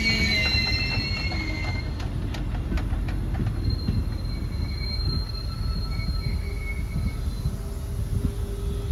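Railway train rolling past with its wheels squealing against the rails: several high screeching tones, loudest in the first two seconds and fainter later, over a steady low rumble, with a few sharp clicks of the wheels over the rail joints around two to three seconds in.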